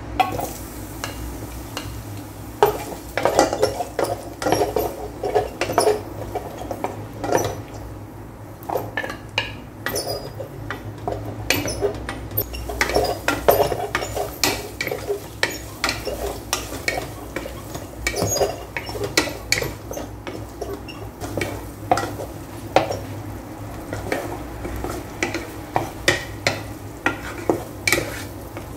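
Wooden spatula stirring garlic and sliced onion in hot oil in a rice cooker's inner pot, knocking and scraping against the pot in frequent irregular taps, over a faint sizzle and a steady low hum.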